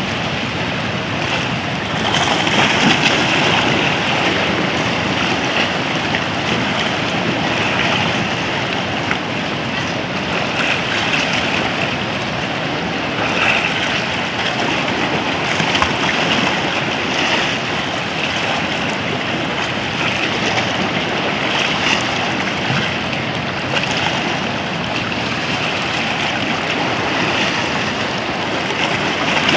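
Sea surf washing and splashing around rocks in shallow water: a steady rush of breaking waves that swells every few seconds.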